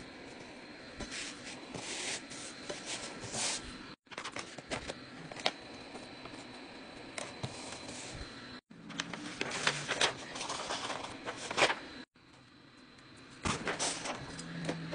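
Handling noises of crafting: rustling and light taps and clicks as a glitter heat-transfer vinyl sheet and the fabric bag are smoothed and positioned by hand. They come in several short stretches that cut off suddenly.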